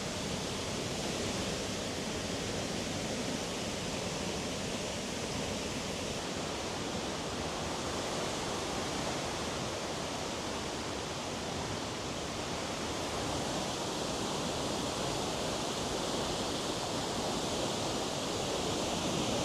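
Waterfall close by: a steady, unbroken rush of falling water.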